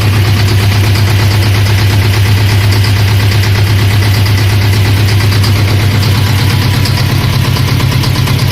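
T-25 tractor's two-cylinder air-cooled diesel engine running steadily at a constant speed, with an even, fast chugging beat.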